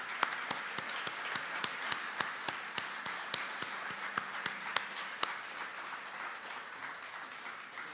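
Audience applauding: a sustained round of clapping, with a few sharper single claps standing out in the first five seconds, easing off toward the end.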